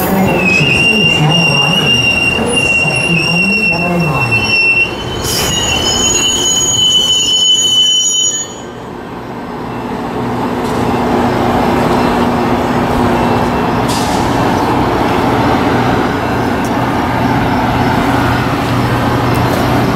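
Metra bilevel gallery passenger cars rolling past close by. A steady high-pitched metallic squeal comes from the wheels, steps slightly higher about five seconds in and stops after about eight seconds, leaving the steady rumble of wheels on rail.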